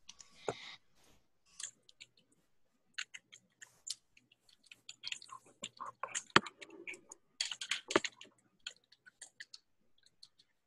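Someone typing on a computer keyboard, with clicks in uneven runs and short pauses between them.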